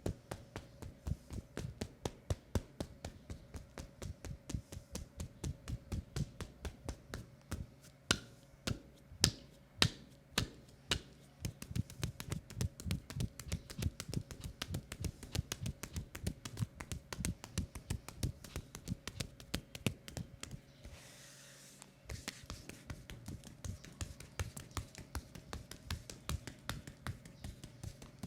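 Hands tapping and patting on a leg in a fast, even rhythm of several strokes a second: a percussive tapping massage. A few sharper, louder slaps come about eight to eleven seconds in, and the tapping pauses briefly about twenty-one seconds in.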